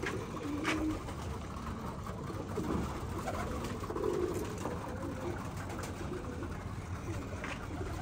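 Domestic pigeons cooing in low-pitched calls, with a few short sharp clicks about a second in and again near the end.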